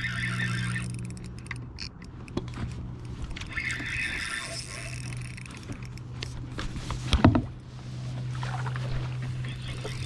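Kayak paddling: paddle strokes and handling on a fishing kayak, with a sharp loud knock about seven seconds in, over a steady low hum.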